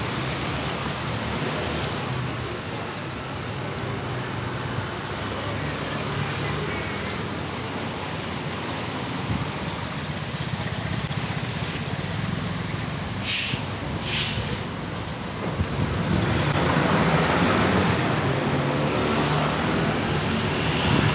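City street traffic: a steady wash of engines and tyres, with two short high hisses a little past the middle and a vehicle passing close, louder, near the end.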